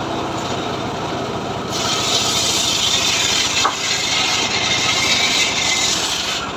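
Homemade engine-driven circular saw running steadily. About two seconds in, its blade bites into a hardwood log and rips along it with a loud, continuous hissing rasp.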